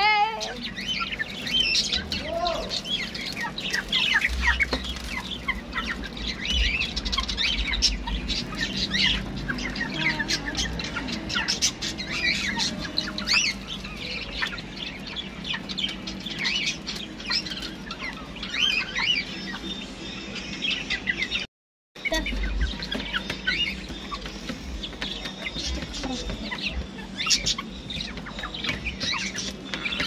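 Brown laying hens clucking with many short high calls while pecking feed pellets, with quick tapping pecks among them. The sound cuts out completely for about half a second a little past the middle.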